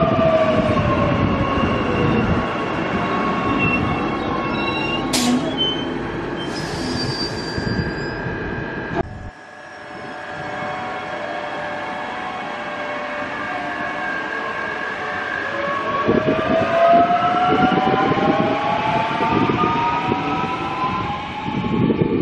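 Electric suburban multiple-unit trains on an overhead-wire line: one runs past and pulls away, its motor whine falling in pitch over rail and wheel noise. After a sudden break about nine seconds in, another train approaches, growing louder with a whine that rises in pitch near the end.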